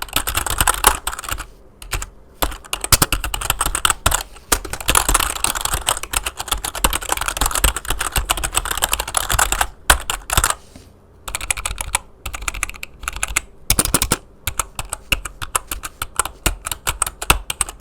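Amkette Evofox Fireblade membrane gaming keyboard being typed on fast, giving a dense run of key clacks with a few brief pauses along the way.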